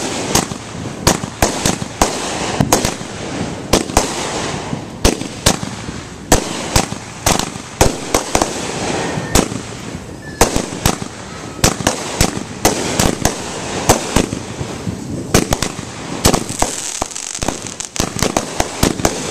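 Consumer firework cakes of 200 and 500 grams, fused together on a finale board, firing in rapid succession: a near-continuous string of sharp bangs, two or three a second, over a steady noisy wash of launches and bursts.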